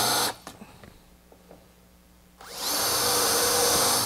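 Festool cordless drill boring countersinks into the wood. A run stops just after the start, then a pause with a few small knocks. About two and a half seconds in it spins up again with a rising whine and runs for about a second and a half before stopping near the end.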